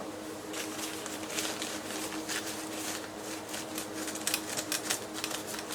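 Irregular, rapid small clicks and scratchy rustling of paper towel being rubbed and handled over the boombox's plastic parts during cleaning, over a faint steady hum.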